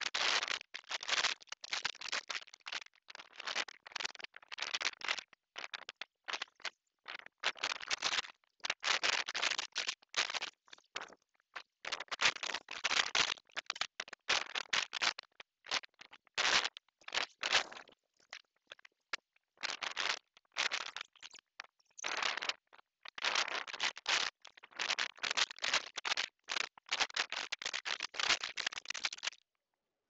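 Storm-force wind gusting against an outdoor security camera's microphone, heard as irregular bursts of rushing noise with short silent gaps between them.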